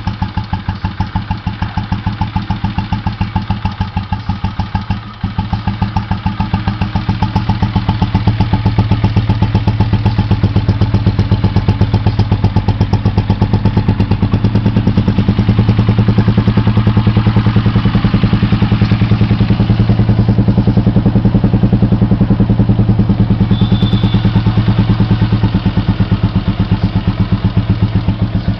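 Royal Enfield Electra 5S single-cylinder cast-iron engine idling with its steady, evenly spaced thump through an indoor-type exhaust muffler. It runs a little louder from about eight seconds in.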